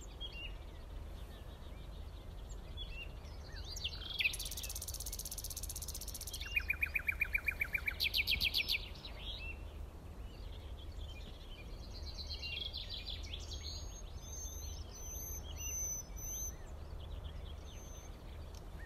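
Birds chirping and singing over a steady low rumble, with a fast rhythmic trill about a third of the way in and clear whistled notes later.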